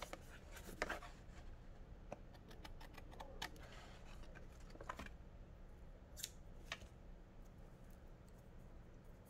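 Scissors snipping paper in a few faint, scattered cuts.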